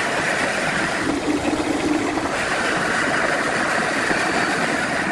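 Wood lathe running steadily, its tone shifting about a second in and again after two seconds.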